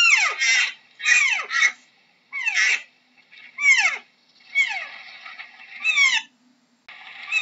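Deer calling: a series of short, high-pitched cries, each falling steeply in pitch, about eight in all and several in quick pairs.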